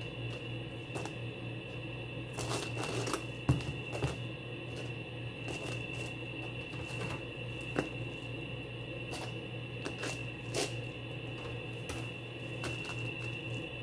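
Cling film crinkling and rustling as round loaves of whole-wheat bread are set down and stacked on it, with a few sharp taps, the sharpest about three and a half seconds in. A steady hum runs underneath.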